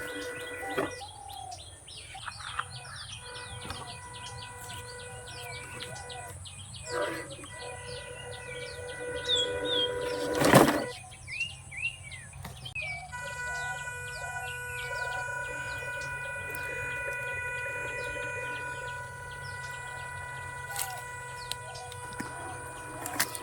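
Birds chirping repeatedly over a steady high whine, with one sharp knock about ten and a half seconds in.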